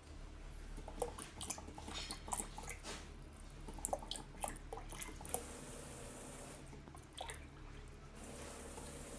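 Water dripping: a run of irregular small plinks and clicks over a low steady hum, mostly in the first half, with a few more later on.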